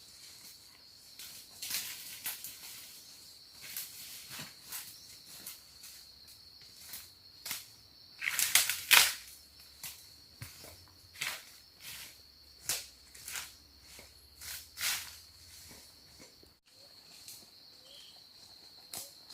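Irregular crackling and rustling, like someone moving through or handling dry forest litter, with a louder cluster about halfway through, over a steady high-pitched insect trill.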